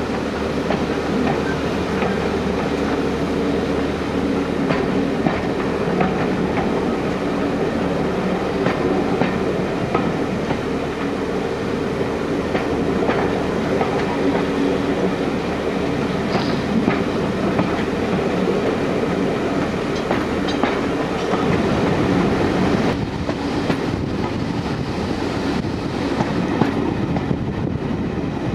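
Steam-hauled passenger train running along the line, heard from a carriage window: a steady rumble of coach wheels on the rails with scattered clicks over the rail joints.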